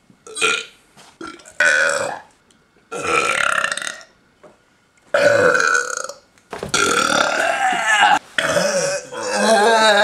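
Deliberate human burps in a burping contest, about six of them one after another with short gaps, the later ones longer and drawn out, over a second each.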